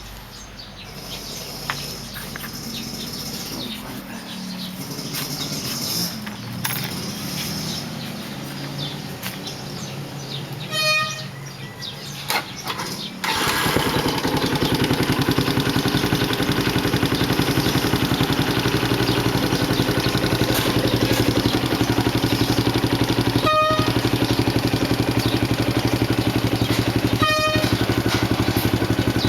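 Yamaha T135's 135 cc single-cylinder four-stroke engine started about halfway through and then idling steadily, with an even pulsing beat through a Nob1 Racing tri-oval SS aftermarket muffler.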